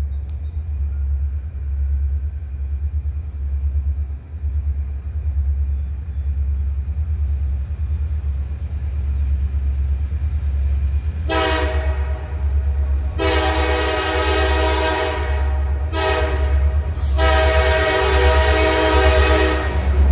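RJ Corman freight train's diesel locomotives approaching with a steady low rumble, then the lead locomotive's horn sounds three long blasts for the grade crossing, the first two nearly run together, growing louder as the locomotives draw up.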